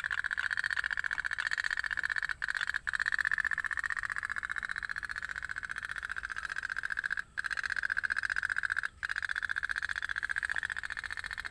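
Toy otok-otok (pop-pop) steam boats running, giving a steady, rapid putt-putt of fast pulses, broken by a few very short gaps.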